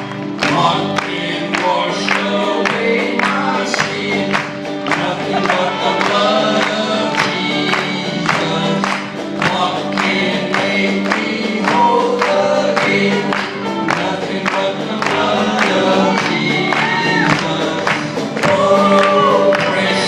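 Two men singing a gospel song together over a sustained accompaniment with a steady beat.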